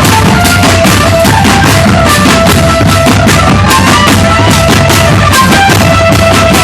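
Marching drum band playing: snare and bass drums beat a steady, dense rhythm under a melody of short held notes.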